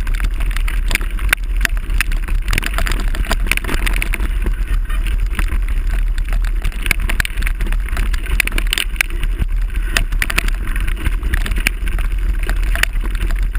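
Mountain bike ridden over a rough gravel forest road, picked up through a handlebar-mounted GoPro HD HERO 960: a steady rumble from the tyres with dense, irregular rattling clicks from the bike and camera mount.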